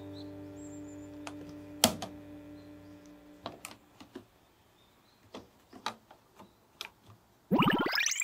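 Background music fading out in the first three seconds, then scattered clicks and taps of plastic Plarail track pieces being handled and snapped together. About seven and a half seconds in, a loud rising whoosh sound effect.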